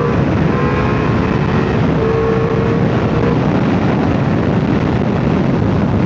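Ducati motorcycle engine running under way, mixed with heavy wind and road rush. The engine note rises slightly through the first few seconds, then sinks into the steady rush.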